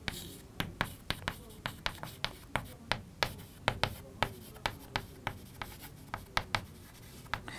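Chalk writing on a blackboard: a quick, irregular series of sharp taps and short scrapes as the chalk strikes and drags across the board.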